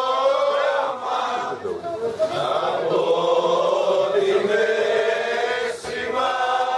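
A group of diners singing together in unison, holding long notes.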